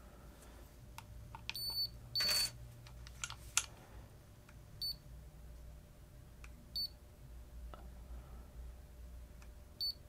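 Fingerprint smart lever lock giving short, high electronic beeps, about five, one to two seconds apart, as its fingerprint sensor is touched during enrollment of the first user. Faint clicks of handling between, and a brief burst of noise about two seconds in.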